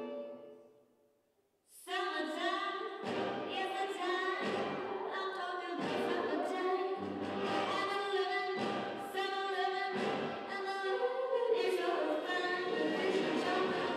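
Recorded music for a dance solo: one passage fades away into a brief hush, then a song with singing and a slow, regular low beat starts about two seconds in.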